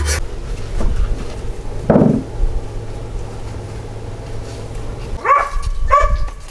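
A dog barking: a single bark about two seconds in, then a quick run of short barks near the end.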